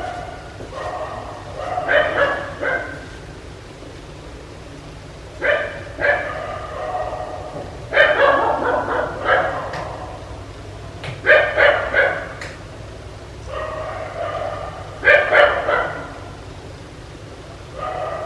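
Dog barking in clusters of two or three quick barks, with pauses of a second or two between the clusters, over a steady low hum.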